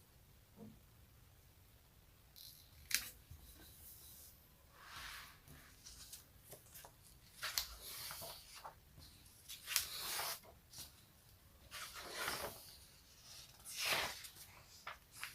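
Close-miked ASMR sticky sounds: a tacky surface pressed and peeled apart, giving irregular crackling peels every second or two, some with a sharp click.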